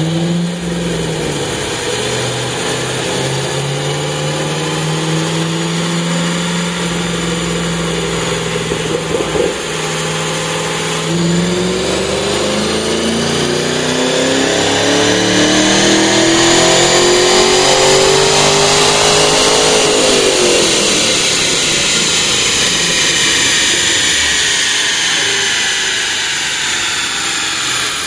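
2013 Chevrolet Camaro SS's 6.2-litre LS3 V8, through its factory NPP dual-mode exhaust, running on a chassis dyno for a stock baseline pull. It holds a steady note with a brief break about nine seconds in, then the revs climb steadily for about nine seconds under full load before the engine lets off and the note falls away.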